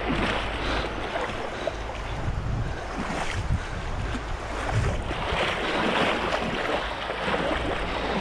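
Shallow river water rushing and splashing around a kayak moving through a riffle, a bit louder and splashier about five seconds in, with a low rumble of wind on the microphone.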